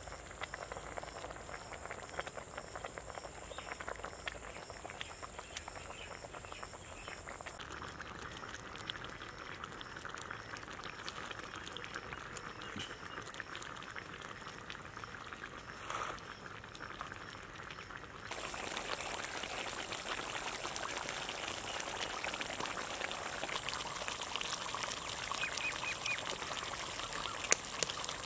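Thick fish curry boiling in a wide metal pot over a wood fire, the gravy bubbling and popping, with small crackles from the burning wood. The bubbling gets louder about two-thirds of the way through.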